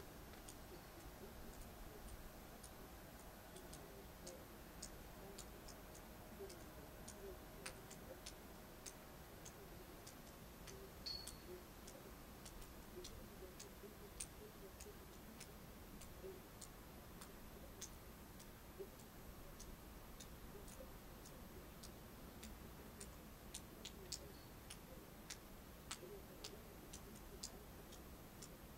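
Near silence with faint, irregular high ticks, roughly two a second, and one brief high chirp about eleven seconds in.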